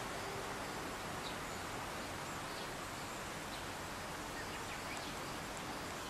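Steady outdoor background noise, an even hiss with no clear rhythm, with a few faint, short high chirps scattered through it.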